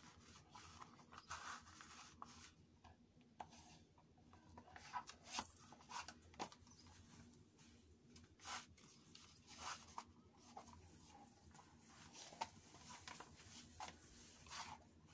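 Faint, scattered squeaks, rubs and light taps of plastic jelly flats as bare feet slide in and out of them and press them against a wooden floor. The loudest comes about five seconds in.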